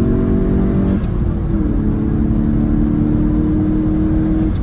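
Modified 2018 VW GTI MK7.5's turbocharged EA888 four-cylinder, with an aftermarket intake and turbo muffler delete, heard from inside the cabin while driving. The revs climb slowly, drop abruptly about a second in, rise briefly, then hold steady until they fall again near the end, over steady road noise.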